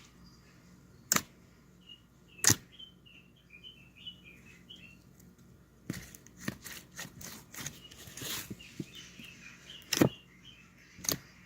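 Hand-played slime making a few sharp pops and a run of small crackles and clicks, with faint high chirp-like squeaks in between.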